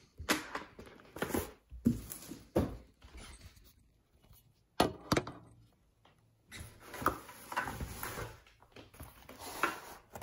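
Cardboard keyboard box being handled: a series of sharp knocks and thuds as it is lifted and set down, then several seconds of cardboard scraping and rustling.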